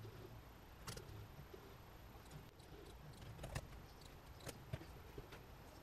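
Faint, irregular clicks and taps of a laptop keyboard and computer mouse being used, spaced unevenly over a low room hum.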